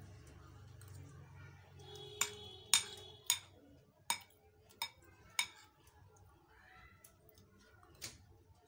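Metal spoon clinking against a glass serving bowl while scooping food, a series of sharp clinks a second or less apart, one early on ringing briefly like glass.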